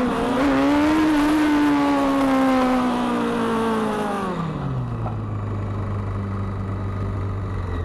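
Motorcycle engine at high revs, its pitch easing down as the bike slows, then dropping about four and a half seconds in to a low steady idle. Wind rush is heard while the bike is moving fast.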